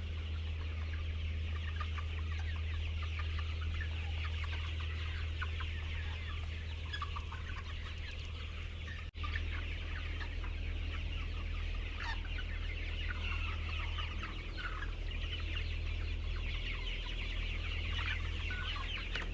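A crowd of chickens clucking and calling all at once, with many short overlapping calls, over a steady low hum.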